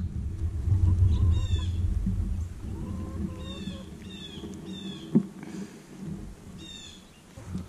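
A flock of hens foraging, with soft calls and five short bursts of high, falling chirps. A low rumble on the microphone in the first couple of seconds.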